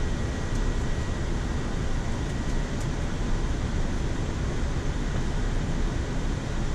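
Steady rushing flight-deck noise inside a Boeing 787-9 in flight on approach: airflow and air-conditioning noise, even and unchanging, with a faint high steady tone.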